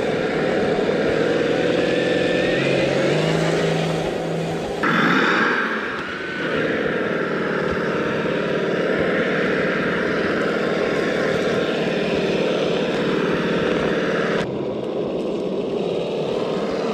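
Electric RC rock crawler's motor and geared drivetrain whining steadily as the truck drives, with small rises and falls in pitch; the sound changes abruptly about five seconds in and again near the end.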